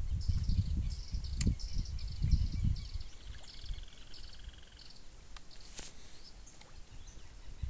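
Repeated short high chirps from small calling animals, with a buzzing trill from about three seconds in lasting under two seconds. A low rumble like wind on the microphone is loudest over the first three seconds, then drops away.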